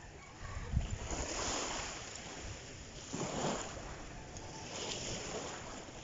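Small waves breaking and washing up a sandy beach, the wash swelling and fading about three times, with wind rumbling on the microphone.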